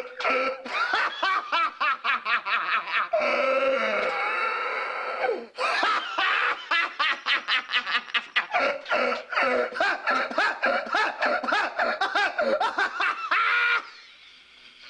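A long fit of hysterical laughter from a man's voice: a rapid run of ha-ha-has, a drawn-out high wheezing stretch about three to five seconds in, then more rapid laughing that breaks off near the end.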